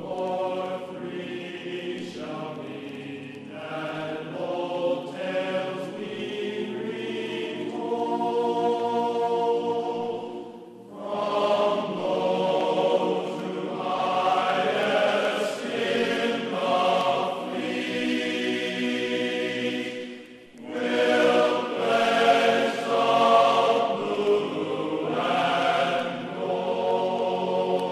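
Background music of slow, held choir-like chanting, the notes changing every second or so, dipping briefly twice.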